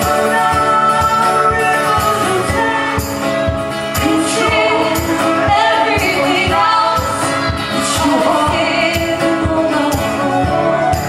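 Live folk-rock duo playing: singing over strummed guitars with a steady beat.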